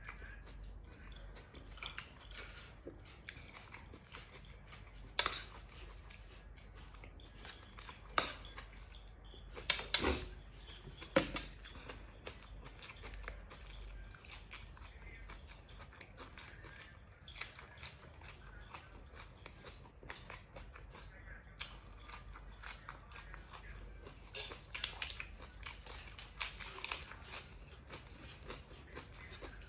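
A person chewing and crunching food close to the microphone, with many small crackling bites and a few louder, sharper crunches around the middle. The food is nam tok moo, spicy grilled pork salad, eaten with raw vegetables such as cucumber and long beans.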